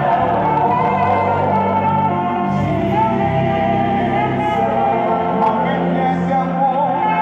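Live gospel worship music: a male lead singer and a group of backing singers sing together over a band.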